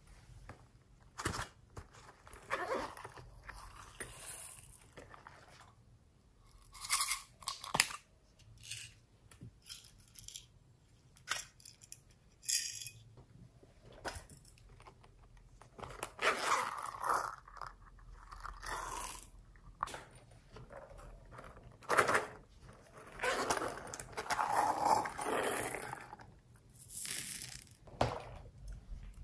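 Plastic beads, pearls, sprinkles and glitter being shaken out of small plastic containers onto a tray of slime, in a series of short noisy bursts. Sharp clicks of the containers being handled come between the bursts.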